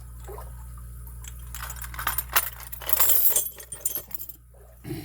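Small metal items clinking and jangling as they are handled, busiest and loudest around two to three and a half seconds in.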